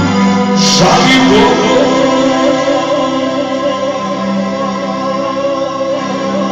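Live band music: a man singing a slow folk song over an electric keyboard, with a violin.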